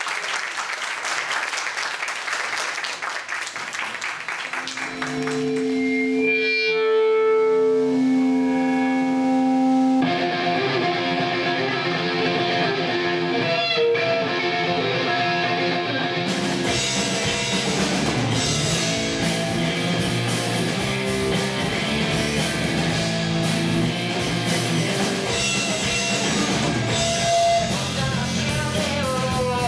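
Live rock band starting a number: after a few seconds of noisy wash, electric guitar holds long sustained notes, then the full band with drums comes in about ten seconds in and plays on at a steady loud level.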